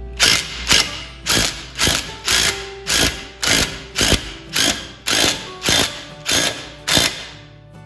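Cordless impact driver hammering in short bursts, about two a second, turning a hex bolt through a 7/16 socket to draw up and set a 1/4-20 steel rivet nut. The bursts stop shortly before the end.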